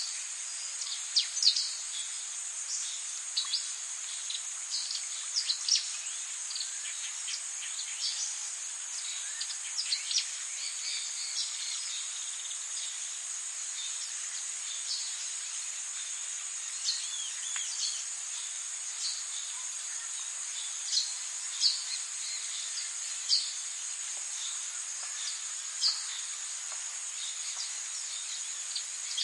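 Forest ambience: a steady, high insect drone, with short, sharp bird chirps scattered through it, many in the first ten seconds or so and fewer after.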